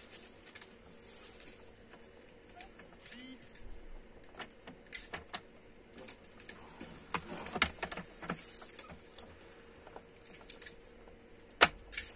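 Scattered light clicks and taps of white cardstock being positioned and scored on a paper trimmer's scoring rail, with a sharp click near the end.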